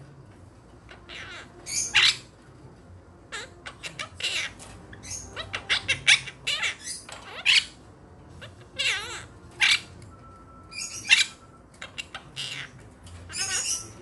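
Quaker parrots giving a string of short, high chirps and squawks, irregularly spaced and coming fastest around the middle, some with a wavering pitch.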